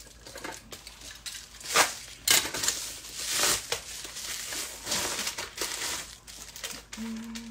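Plastic padded mailer crinkling and rustling as it is handled, with a few sharper crackles.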